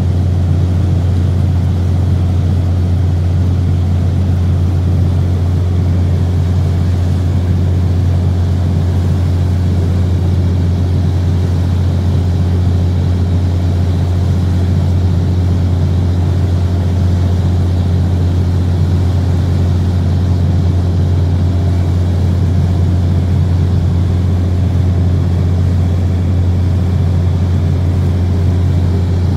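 A boat's engine running steadily under way, a constant low drone with the wash of the wake churning behind the hull.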